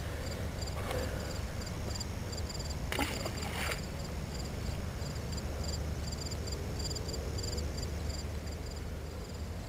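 Insects chirping in a steady, regular series of short high chirps. A brief noise about three seconds in, over a low steady rumble.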